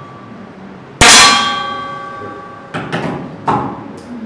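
A 10 m air pistol shot, its pellet striking a steel pellet trap that rings out with a metallic clang and fades over about a second and a half. A few lighter clicks and knocks follow near the end.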